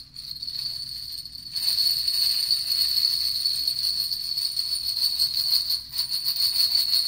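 Hand-held stick of jingle bells shaken continuously, a steady bright jingling that grows louder about a second and a half in.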